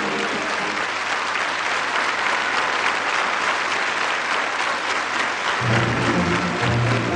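A large theatre audience applauding, a dense steady clapping. About five and a half seconds in, low notes of music come in under the clapping.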